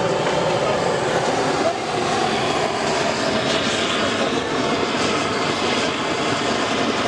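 Busy street ambience: steady traffic and engine noise with voices mixed in.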